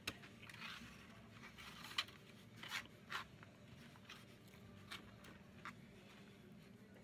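A fork scraping and clicking against a styrofoam takeout container as shredded salad is picked up. There are several short, sharp clicks, the loudest about two seconds in, over faint room hum.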